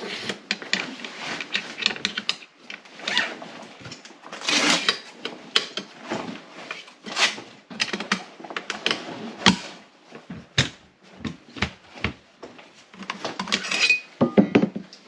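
Irregular handling clatter of gear: metal clinks and knocks mixed with rustling and scraping, as a bag and its contents are handled.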